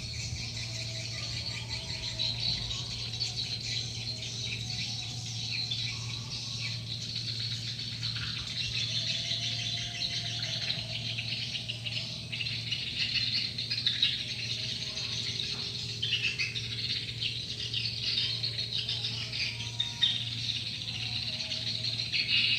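Dense, unbroken twittering and chattering of edible-nest swiftlets, the swiftlet-house call sound used to lure the birds to roost, over a steady low hum.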